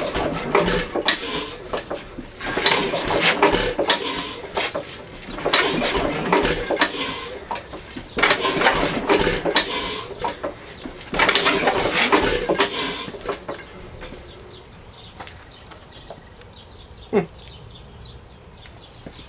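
Hercules 2½ HP hit-and-miss engine turned over by hand at the flywheel through five compression strokes: five bursts of hissing and metallic clatter, about three seconds apart. The hiss is audible blow-by past brand-new, unbroken-in rings in a badly worn bore, so the engine holds little compression.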